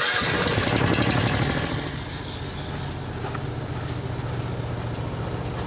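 Small gas engine on a lawn spray rig, started from a remote electric-start switch, firing at once and running steadily; a little louder for the first couple of seconds, then settling.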